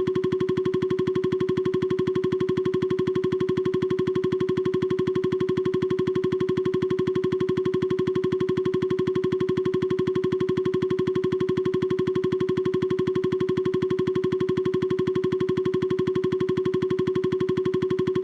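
Steady electronic buzzing tone, one unchanging pitch with a rapid even pulse, a synthesized cartoon sound effect.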